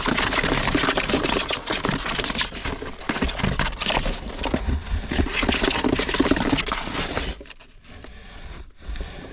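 Close, dense rustling and crinkling with many small scrapes and taps, which drops away sharply about seven seconds in.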